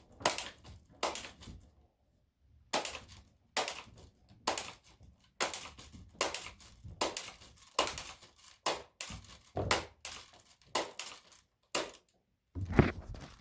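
Rapid string of BB gun shots striking a plastic coffee maker: more than a dozen sharp cracks, roughly one every half second to a second, with a short pause about two seconds in.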